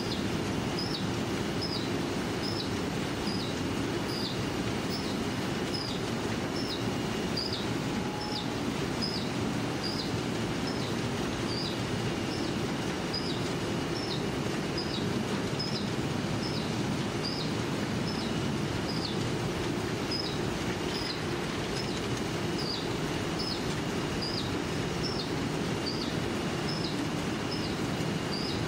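Muller Martini Inventa 2 automatic book-sewing machine running steadily, a dense mechanical clatter with a short high squeak repeating about every three-quarters of a second.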